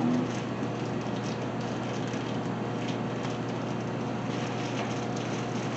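A steady low electrical hum with an even rushing noise from a running appliance, with a few faint rustles and clicks as a packet and bag are handled.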